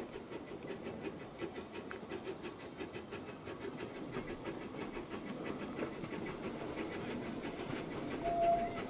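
Narrow-gauge field-railway steam locomotive running under steam, its exhaust beats in an even rhythm and growing slowly louder as it approaches. A short steady high tone sounds near the end.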